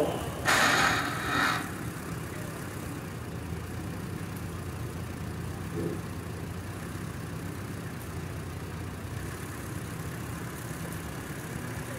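Vintage tractor engine idling steadily while the tractor is held balanced on a see-saw beam. A brief, louder noisy burst comes about half a second in and lasts about a second.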